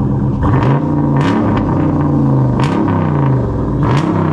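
Dodge Challenger's engine running behind the exhaust with three quick throttle blips. The exhaust note rises and falls with each one, about a second apart.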